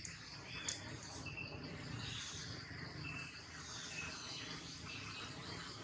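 Insects chirping steadily, with short high chirps repeating about once a second. There is a brief sharp click less than a second in.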